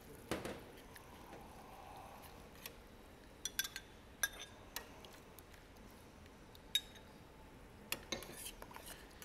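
A long metal spoon clinking and scraping against a small ceramic bowl and a steel stockpot while a sauce is scraped into the pot and stirred: irregular, sharp clinks, about a dozen in all, bunched most closely around three to five seconds in and again near the end.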